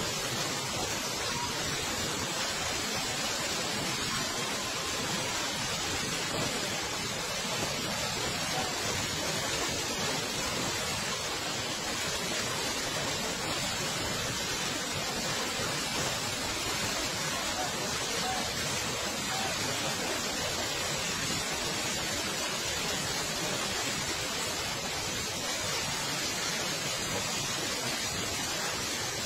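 Steady rush of fast-flowing floodwater, an even, unbroken wash of noise.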